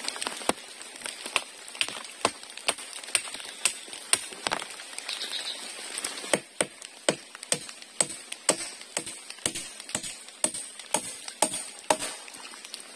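A machete chopping into a wooden pole: sharp blows about two a second, with a short pause about five seconds in.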